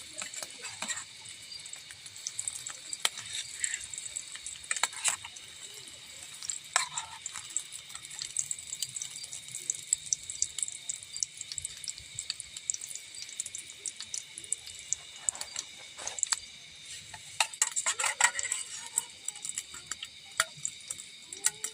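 Camp cooking sounds: scattered clicks, knocks and scrapes of utensils, with water being handled or stirred, denser about three-quarters of the way through. A steady high-pitched drone sits underneath.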